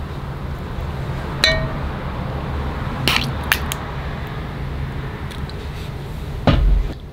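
Kitchen utensils being handled: a metal measuring spoon clinks with a short ring about a second and a half in, then a few light clicks and a dull knock near the end, over a steady low hum.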